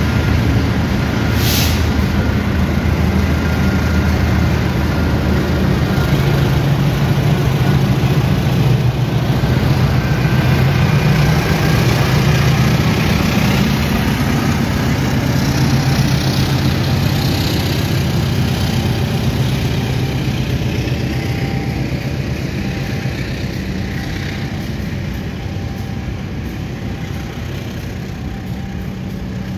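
Diesel-electric locomotive hauling a long-distance passenger train past the platform: a steady low engine drone that builds, then the coaches rolling by as the sound slowly fades. A short hiss about a second and a half in.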